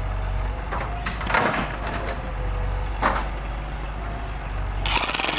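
A motor runs steadily with a low hum, broken twice by short hissing bursts. Near the end, a jackhammer starts up and hammers rapidly into hard ground.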